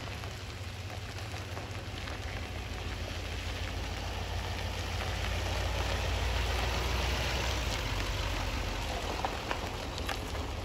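Car moving on a wet road in the rain: a steady low rumble under a hiss of rain and wet tyres, swelling louder around the middle and easing off near the end.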